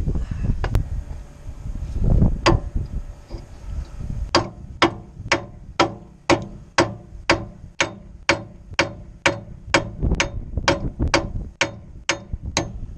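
Big hammer striking the end of a rust-seized steel bolt, where the nut sits threaded flush, in sharp ringing metal blows: two separate strikes, then a steady run of about two a second. The bolt stays seized under the blows.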